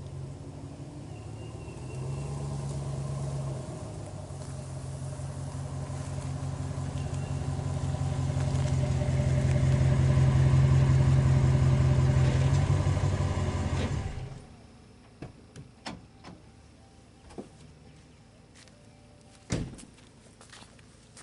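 Pickup truck engine running as the truck pulls up close, a steady hum growing louder, then switched off abruptly about two-thirds of the way in. After it stops come light footsteps on dry leaves and one sharp knock near the end.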